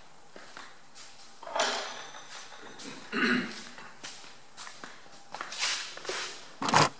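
A man coughing several times in short bursts, the loudest near the end, with quieter shuffling and handling noises between them.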